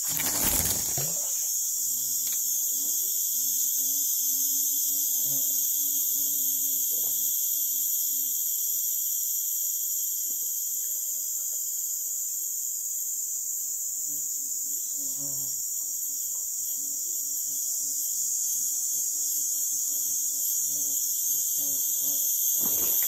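A steady, high-pitched drone of insects from the surrounding forest. A brief rush of noise comes in the first second.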